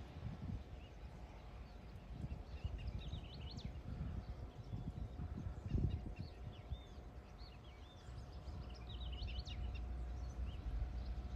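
Wind gusting against the microphone in uneven low rumbles, with birds chirping in short quick clusters several times over it.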